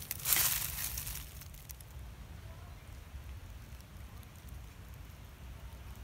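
Brief crunching rustle of dry leaves and twigs, fading within about a second and a half, then a low steady rumble of wind on the microphone.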